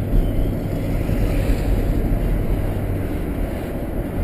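Engine and road noise inside the cab of a truck driving along a street: a steady low hum with no sudden sounds.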